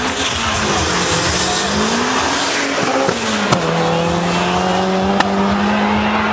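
Two drag-racing cars accelerating hard down a quarter-mile strip, the engine note climbing through the gears. It drops at an upshift about three and a half seconds in, and there are two sharp cracks, one then and one about five seconds in.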